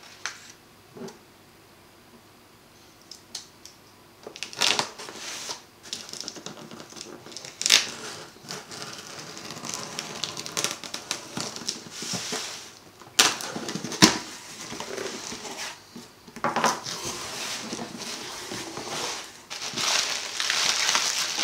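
A cardboard shipping box being opened by hand: packing tape slit and torn, cardboard flaps rustling and scraping, with a couple of sharp knocks partway through. Plastic bubble wrap crinkles near the end.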